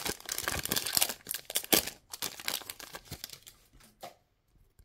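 Foil wrapper of a 2022-23 NBA Optic trading-card pack being torn open and crinkled by hand. The crackling is dense for about two seconds, thins out, and stops about four seconds in.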